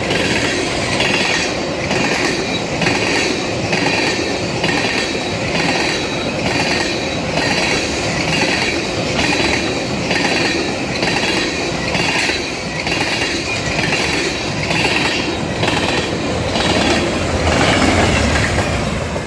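Freight train of tank cars rolling past, its wheels clicking over the rail joints in a steady rhythm with a high wheel-on-rail screech that comes and goes about one and a half times a second. The low rumble swells a little near the end.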